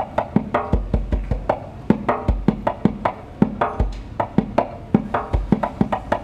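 Hand drum played in a fast rhythm: quick, sharp slaps several times a second, with a deep bass stroke about every one and a half seconds.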